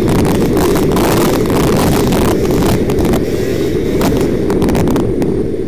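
Tuned 50 cc two-stroke engine with an Airsal T6 cylinder, Doppler head and Giannelli Black Gun exhaust, running steadily at high revs under way, with wind noise on the microphone.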